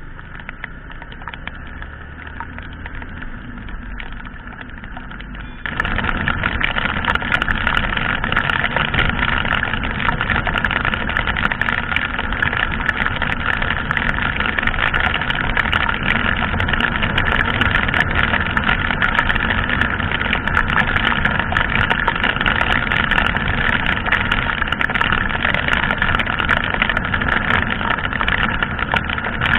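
Yamaha sport motorcycle riding through heavy rain: engine drone under a steady rush of wind and rain on the camera microphone, with many small ticks of raindrops. It gets suddenly louder about six seconds in and stays loud.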